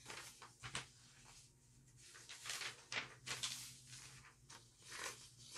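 Faint, irregular rustles and scrapes of paper sheets being handled.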